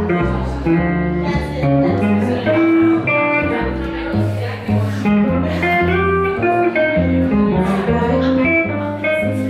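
Live jazz combo: a Gretsch G400 archtop guitar picks quick single-note lines over an upright double bass walking steady plucked notes.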